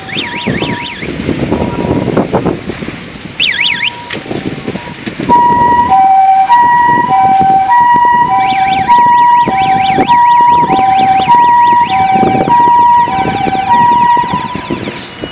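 Police car siren: two short bursts of fast warbling, then a loud steady two-tone hi-lo alternation, switching about every half-second, from about five seconds in until near the end.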